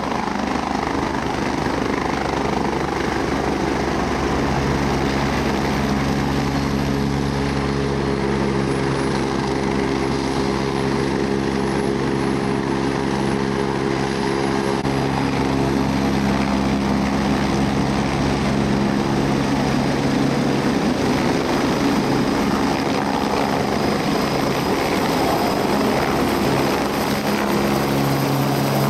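Helicopter running, a steady pulsing rotor rumble with engine tones over it and a thin high turbine whine that dips in pitch midway and climbs again near the end.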